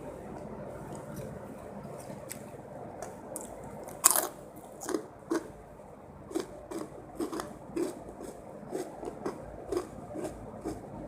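A person chewing a mouthful of spicy fried rice with pete (stink beans), with a sharp bite or click about four seconds in. It is followed by steady crunchy chewing at about two chews a second.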